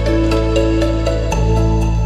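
Soft new-age instrumental background music: sustained keyboard chords over a steady bass with a light, regular beat. The bass note shifts a little past halfway through.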